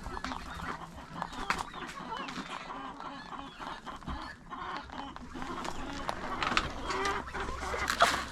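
A flock of domestic poultry calling, with many short, overlapping calls and scattered sharp clicks.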